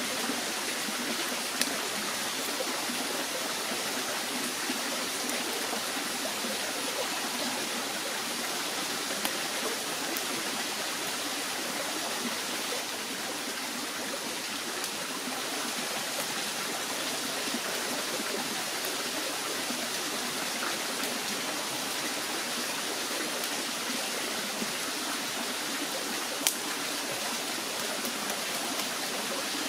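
Steady rush of running stream water, with a couple of sharp clicks, one about a second and a half in and another near the end.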